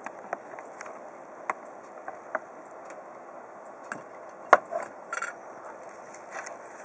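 A series of light, sharp clicks and knocks at irregular intervals over a steady hiss, the loudest about four and a half seconds in and a quick cluster just after five seconds.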